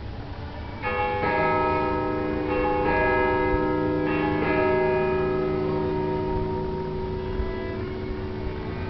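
Church bells ringing: about six strokes in the first five seconds, each leaving a long ringing tone that slowly fades.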